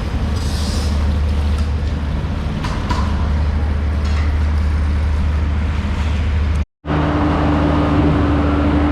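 Steady low mechanical rumble of an engine or machinery running. It cuts out completely for a moment about seven seconds in, and after that a steady humming tone joins it.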